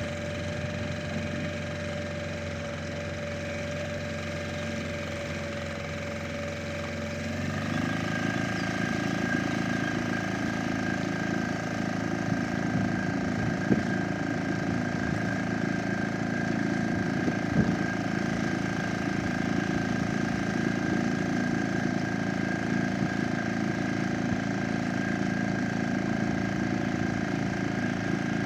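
Small outboard motor pushing an inflatable boat, running steadily. About seven seconds in it is throttled up, getting louder with a changed, higher tone. Two brief knocks come later.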